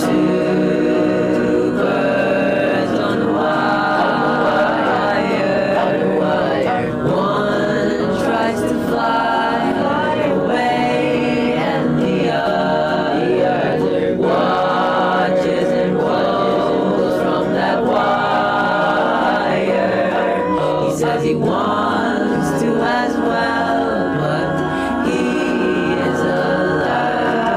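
A song with layered sung vocals over instrumental backing, at a steady level.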